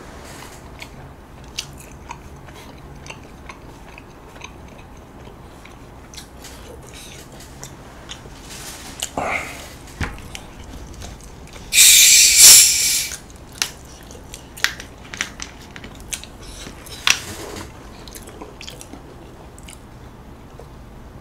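Plastic Coca-Cola bottle being opened: a loud hiss of escaping carbonation that lasts about a second, a little past halfway through. Scattered small clicks and the sounds of drinking from the bottle follow near the end.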